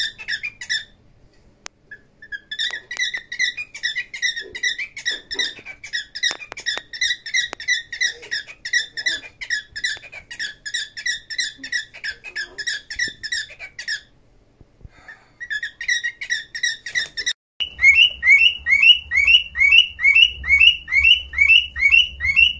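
Small pet parrots, a cockatiel and a budgie, chirping in a long run of short, evenly repeated chirps with a short break. After a cut, a cockatiel gives a run of quick, short rising chirps, about three a second, over a low hum.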